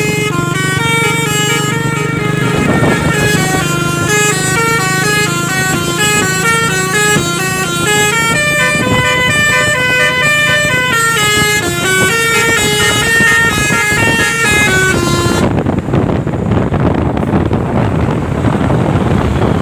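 Truck's telolet basuri musical horn playing a quick tune of short stepped notes, which stops about fifteen seconds in; a loud rushing noise without any tune remains after it.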